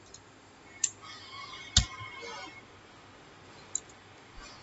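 Three sharp clicks of computer keys while text is being edited, the middle one the loudest, with a faint thin tone of about a second and a half in the background between them.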